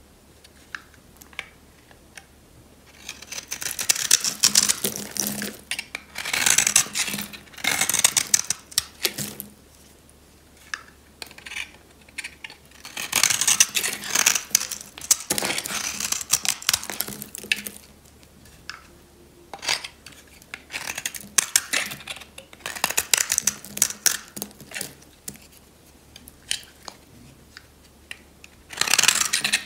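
Knife blade shaving thin flakes off a bar of dry, brittle soap: a crisp crackling scrape, in four runs of several seconds with short pauses between.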